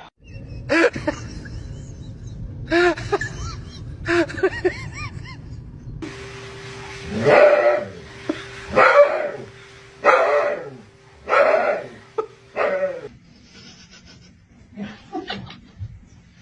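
A dog barking: a few barks in the first seconds, then a run of five louder barks about a second and a half apart, with fainter ones near the end.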